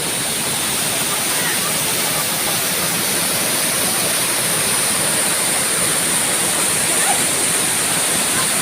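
Steady, unbroken rush of a waterfall on a mountain river, with a steady high-pitched whine running over it.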